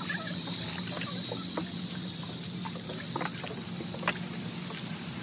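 Paddles dipping and trickling in the canal water as a hand-paddled wooden sampan moves along, with a few sharp knocks from the paddles or boat. A steady low hum runs underneath.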